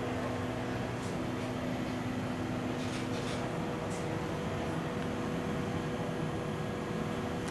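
Steady hum of a Siemens S70 light-rail vehicle standing powered up, its ventilation fans and on-board electrical equipment running: an even rush of air with a low, steady tone.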